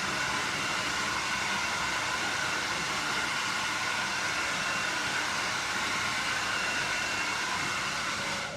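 Handheld hair dryer blowing steadily, cutting off abruptly at the end.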